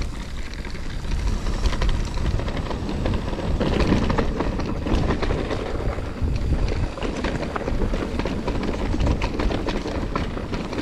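Mountain bike descending a rough, rocky trail: wind rumbling on the microphone, with the tyres and frame giving a constant run of clicks, knocks and rattles as the bike goes over stones.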